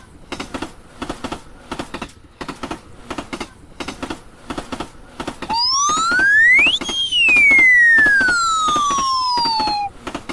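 Animated train's wheels clacking steadily over the rail joints. About halfway through, a cartoon whistle slides quickly up in pitch, then glides slowly back down and cuts off near the end.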